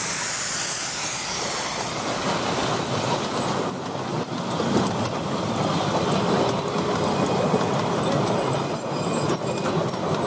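Miniature SR 'Atlantic'-class 4-4-2 steam locomotive passing close by with a hiss of steam, then its train of passenger carriages rolling past on the track.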